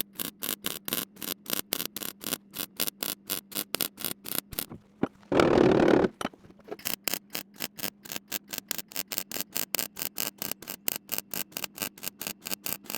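MIG welder stitch-welding a steel repair panel in a car wheel arch, its arc crackling in short, even bursts about four or five a second. About five seconds in, a louder steady rasp lasts under a second.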